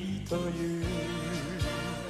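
A male pop singer holds a sung note with vibrato over a band's slow ballad accompaniment.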